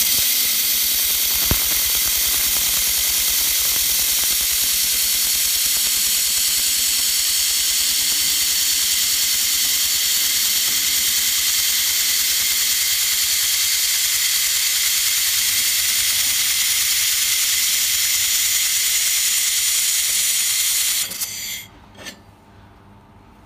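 A 1500 W handheld fiber laser welder runs one continuous seam along a sheet-metal T-joint, giving a steady, loud hiss from its shielding gas and the weld. The hiss cuts off abruptly about 21 seconds in as welding stops, and a few light clicks follow.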